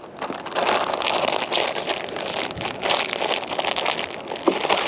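Plastic bag crinkling and rustling as bread dough is squeezed and kneaded inside it, a steady run of rapid crackly rustles.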